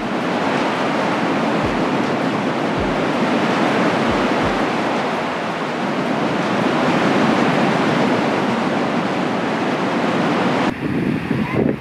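Surf washing onto a sandy beach, a steady rushing noise, with wind buffeting the microphone in a few low thumps. About eleven seconds in the rush drops and turns duller.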